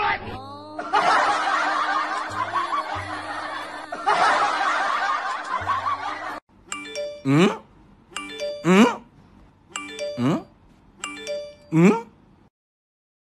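Snickering laughter for about five seconds, then a short tonal comedy sound effect repeated four times, each ending in a steeply falling pitch.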